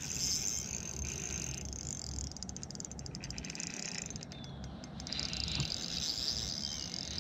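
Spinning reel cranked steadily against a hooked bass, a fine high whir from its rotor and gears. The cranking stops for about three seconds in the middle, where faint rapid ticking comes through, then the whir resumes.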